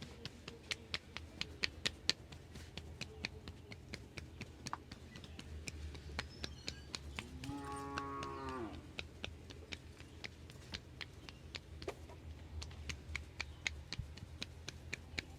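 A single cow moo, one drawn-out call of about a second and a half near the middle, dipping in pitch as it ends. Around it runs a series of quick, sharp taps, a few a second, which pause while the cow calls.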